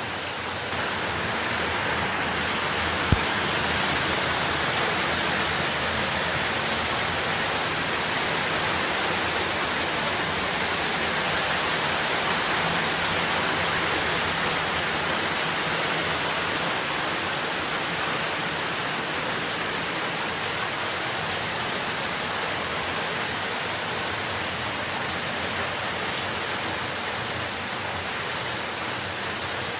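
Steady heavy rainfall, an even hiss that swells a little about a second in and eases slightly near the end. A single sharp click cuts through about three seconds in.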